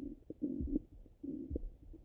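Stomach gurgling heard through a stethoscope pressed to the belly, the bowel sounds of active digestion after a meal: short bubbly rumbles about half a second in and again just past the middle. Faint low thumps of the heartbeat sit underneath.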